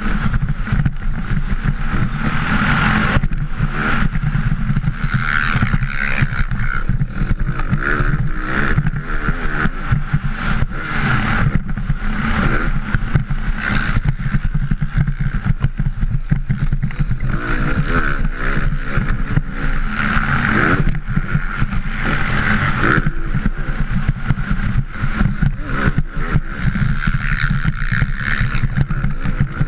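Motocross bike's engine at race pace, revving up and falling off again and again through the corners and straights, heard from a helmet-mounted camera with wind noise and buffeting over it.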